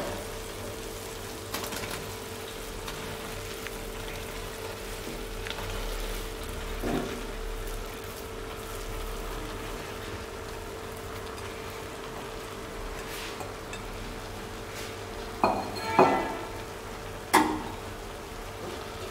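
Potato and tomato masala sizzling faintly in a metal pan, with a few knocks and scrapes of a metal spoon against the pan as the mashed boiled potatoes are stirred in, most of them near the end. A steady hum runs underneath.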